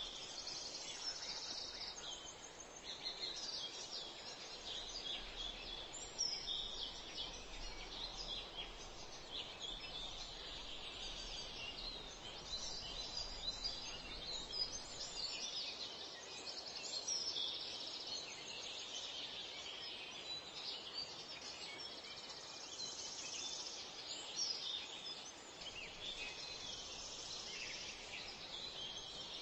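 Outdoor ambience: a continuous, dense chorus of high-pitched chirps and trills.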